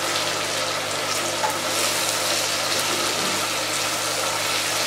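Eggs and diced potatoes sizzling in a non-stick pan over a low flame, stirred and scraped with a silicone spatula: a steady hiss.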